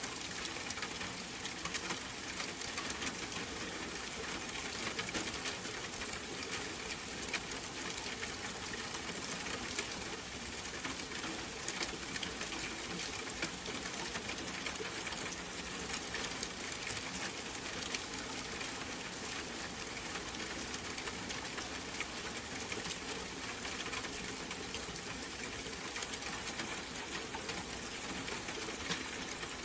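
Steady rain falling: a constant hiss with a dense patter of individual drops.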